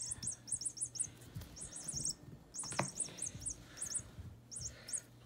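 Electronic bird-chirp sound from a cat toy: short, identical high chirps in quick clusters of three to five, repeating. A soft knock comes about halfway through.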